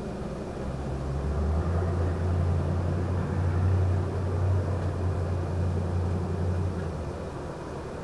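A vehicle passing on a road, a low rumble that swells over a couple of seconds, holds, and fades out about seven seconds in. Behind it is a steady night background with crickets faintly chirping.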